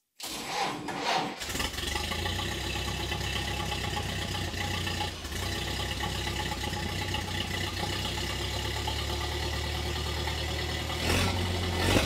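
Ford Model A four-cylinder flathead engine starting, catching about a second in, then idling steadily through its freshly fitted exhaust pipe and muffler.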